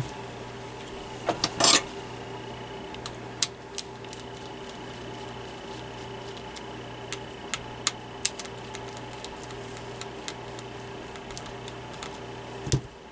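Scattered clicks and knocks of small plastic and metal parts being handled while the old motor is taken out of a personal fan, over a steady background hum.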